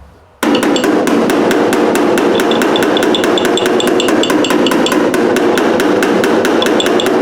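Rapid, even hammering on the car's steel body panel, about eight blows a second with a metallic ring, starting abruptly about half a second in: the dent being worked out of the MGA's panel.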